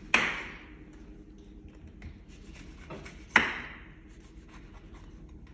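An orange being peeled or cut with a blade: two sharp scraping strokes about three seconds apart, each fading out over about half a second, with a faint tap between them.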